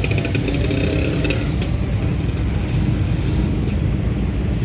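Vehicle engine running close by with a loud, steady low rumble; a higher hiss over it in the first second and a half dies away.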